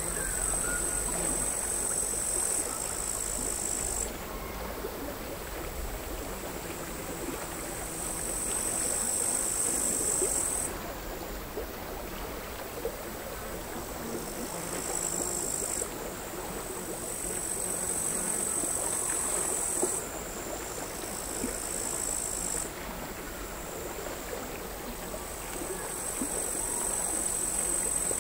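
Crickets singing in high trills that come in bouts of a few seconds, each starting and stopping abruptly, over the quiet, irregular lapping of small sea waves on the shore.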